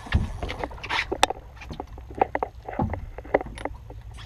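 Small boat sitting on calm water: irregular light clicks and knocks against the hull, two low thumps, and a steady low wind rumble on the microphone.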